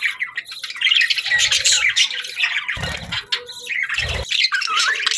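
Budgerigars chattering and warbling: a fast, continuous stream of chirps and squawks, with two brief low thuds about three and four seconds in.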